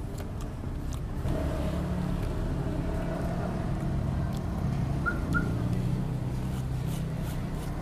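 A motor vehicle engine running close by, its low hum swelling about a second in and holding steady, with two short high chirps a little past the middle. A few faint clicks of a spoon on a plate.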